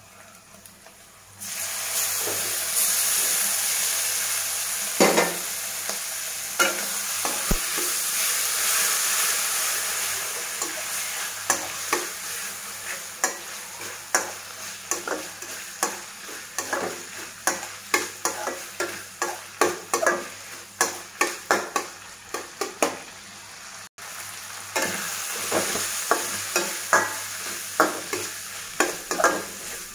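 Goat intestine pieces tipped into a hot stainless steel kadai, setting off a sudden loud sizzle about a second and a half in. The frying hiss keeps going while a spatula stirs, its strokes scraping and knocking on the steel pan about twice a second.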